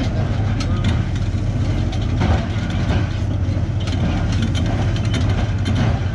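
Caterpillar D9H bulldozer's diesel engine running steadily as the machine rips rock with its rear shank, with a few sharp clanks and cracks over the drone.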